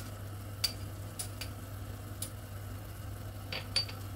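A few light clicks and taps of a spatula against a pan of simmering soup, over a steady low hum.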